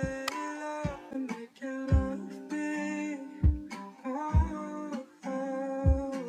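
Background music: a guitar-led track with a low drum thump roughly once a second.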